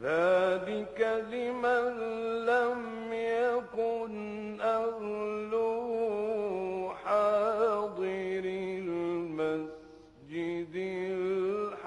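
A male Quran reciter chanting in the melodic tajwid style, holding long ornamented notes. He starts after a silence and takes a brief breath about ten seconds in.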